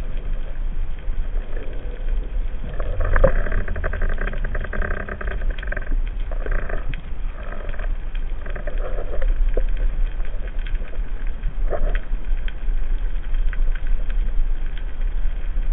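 Underwater sound picked up through a camera's waterproof housing: a steady low rumble of moving water, with swishing swells that come and go as the diver moves.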